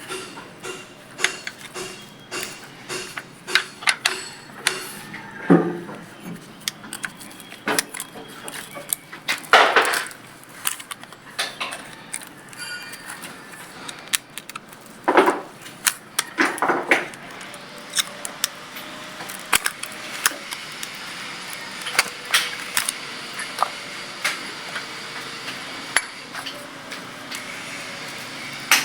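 Metal hand tools clinking and knocking against the valve gear of a Ford 5000 tractor engine while its valve clearances are being adjusted. The sharp knocks come irregularly, with a few louder clanks.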